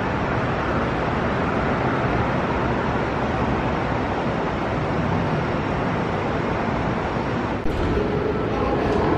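Steady road traffic noise, an even roar of passing vehicles. About three-quarters of the way through it cuts to a different steady ambient hum with a held low tone.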